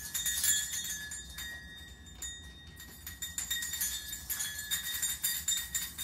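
Metal bells on a hanging bird toy jingling and ringing as a parrot climbs and flaps on it, loudest in the first second.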